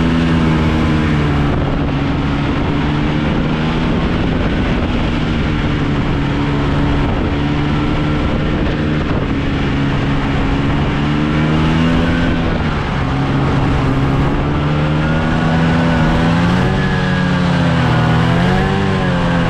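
Vehicle engine running under way, steady at first, its pitch rising and falling with the throttle over the last few seconds.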